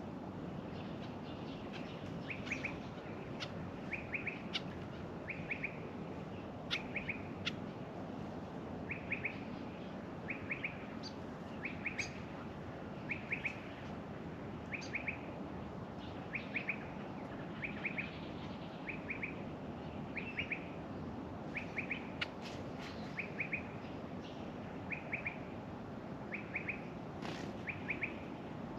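Backyard birdsong: a bird repeats a short call of three or four quick notes about every second and a half, while other birds give occasional sharp chips, over a steady low hiss.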